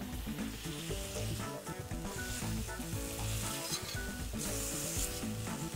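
Thin slices of beef sizzling as they sear in a hot pan, over background music.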